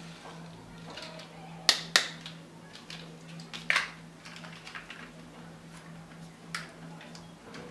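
Sharp clicks and taps of small plastic toy vehicles being handled: two close together about two seconds in, another near four seconds, and one more late on, over a steady low hum.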